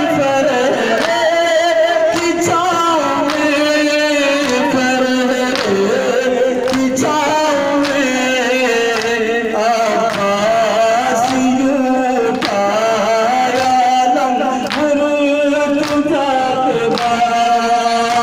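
A crowd of men chanting a melody together, led by a strong wavering voice, with sharp beats struck at a regular pace to keep time.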